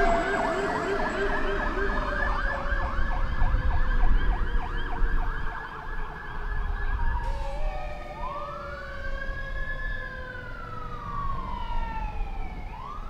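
Fire engine siren in a rapid yelp, its pitch sinking and fading as it passes. About halfway through a siren in a slow wail takes over, rising and falling once, with the next rise starting near the end, over low traffic rumble.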